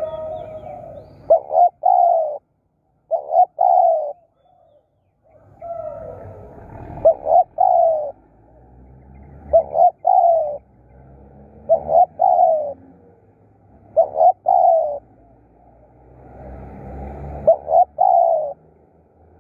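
Spotted dove cooing: seven repeated phrases every two to three seconds, each two short clipped notes followed by a longer, falling coo.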